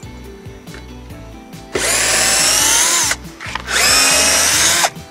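Cordless drill/driver reversing stainless steel screws out of a boat's rub rail. It runs twice, starting about two seconds in, each time spinning up with a rising whine and stopping abruptly.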